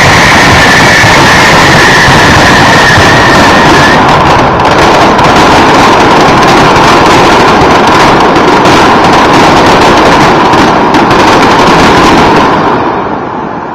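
Fireworks finale: a dense, continuous barrage of bursts and crackling, loud enough to run the recording near full scale. A high steady whistle rides over it for the first few seconds, and the barrage thins out and fades near the end.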